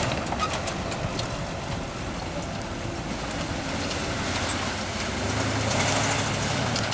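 Engine of a lifted full-size 4x4 SUV running under load as it drives through mud, getting louder about five seconds in.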